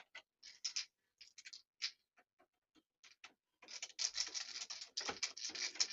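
Small metal clicks and scrapes as the lock cylinder's retaining screw is handled, then from about three and a half seconds in a rapid run of scratchy clicking as the screw is driven in with a hand Phillips screwdriver.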